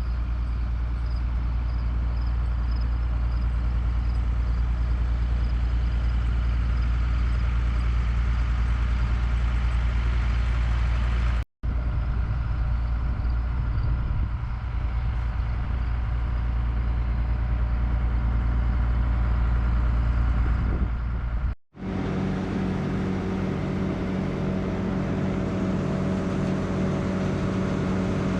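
Heavy farm machinery engines running steadily at a constant pitch, with no revving. The sound cuts out abruptly twice, and after the second break a differently pitched engine hum carries on.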